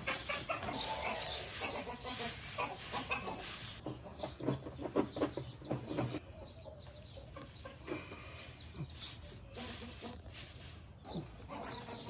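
Poultry clucking in the shed, mixed with dry hay rustling as it is lifted and pushed into a nest box.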